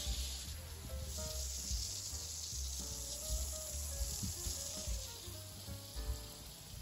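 Garden hose spray nozzle hissing steadily as water sprays out, over light background music with a bass line.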